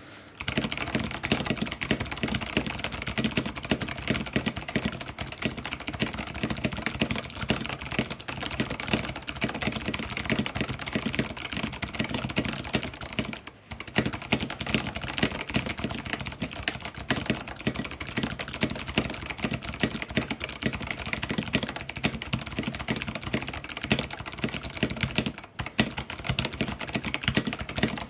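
Mechanical keyboard with stock Kailh Box White clicky switches and PBT keycaps typed on fast and continuously, a dense run of sharp clicks. The typing stops for a moment twice, about halfway through and a few seconds before the end.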